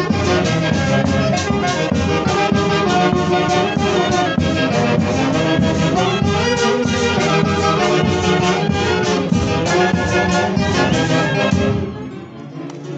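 Andean festival band of saxophones, trumpets, violin, harp and bass drum playing a lively dance tune with a steady beat. The music drops away briefly near the end.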